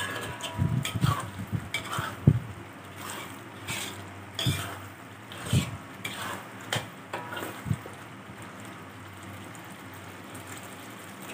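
Metal spatula scraping and knocking against an aluminium wok as thick curry paste is stirred while it fries, at the stage where the oil has separated from the paste. The strokes are irregular and die away about eight seconds in, leaving a steady low hum.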